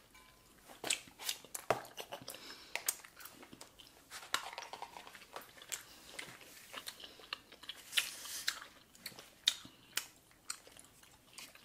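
Chewing gum being chewed: irregular wet smacks and clicks of mouths working the gum.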